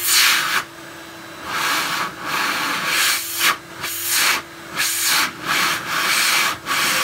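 Numatic cylinder vacuum cleaner running with a steady motor hum, broken by repeated surges of rushing air about once a second as the suction is worked.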